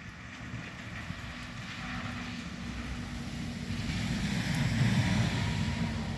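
A vehicle going by: a low rumble with a steady hum that grows louder, peaks about five seconds in, then begins to fade.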